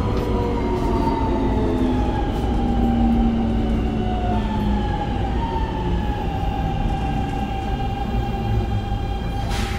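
Interior running sound of a Keikyu New 1000 series train with a Siemens GTO VVVF inverter: steady rumble of the wheels and the motors' whine in several thin tones that slowly fall in pitch as the train slows. A short sharp click comes near the end.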